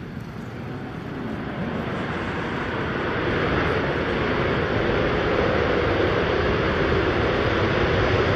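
Jet engines of four Blue Angels F/A-18 Super Hornets running at high power for a formation takeoff roll. The roar grows louder over the first three seconds, then holds steady.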